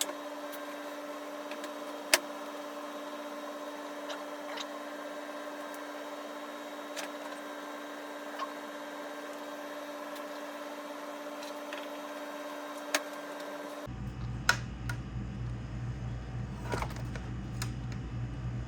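Steady electrical hum with a few isolated sharp clicks. About 14 seconds in the hum stops and a low rumble takes over, with clicks coming more often.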